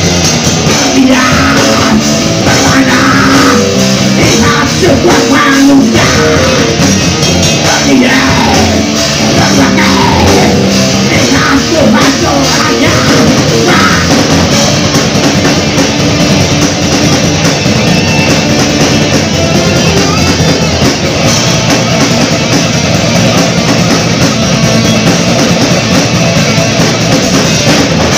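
Live rock band playing loud heavy rock: electric guitar, electric bass and drum kit together, without a break.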